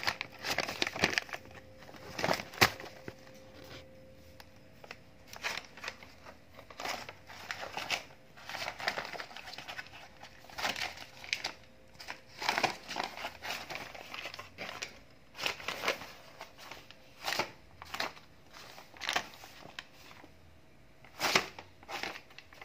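Brown paper bag crinkling and rustling in irregular bursts as kittens paw at it and move about in and around it.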